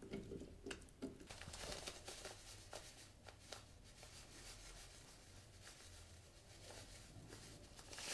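Faint crinkling of a plastic bag of panko breadcrumbs being handled and shaken out over potatoes, with a few soft clicks, mostly in the first few seconds.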